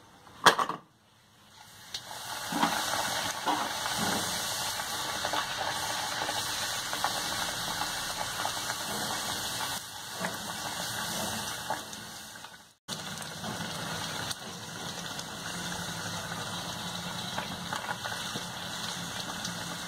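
Poori deep-frying in hot oil in a kadai, a steady sizzle. It breaks off for a moment about two-thirds through and resumes. A short knock comes about half a second in.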